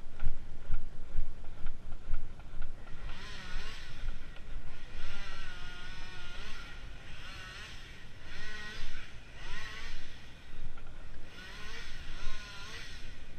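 Very long crosscut handsaw cutting through wood in repeated strokes about a second long, each stroke a rasping scrape with a wavering ringing of the blade. A low rumble runs under the first few seconds.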